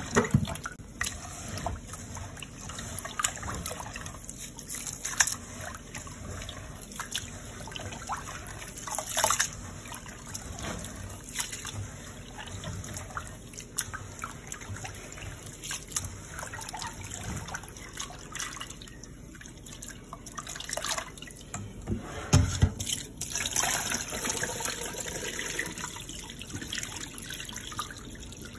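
Brown rice being washed by hand in a pot of water in a stainless steel sink: water sloshing and splashing unevenly as the grains are stirred and rubbed. There is a low thump about 22 seconds in.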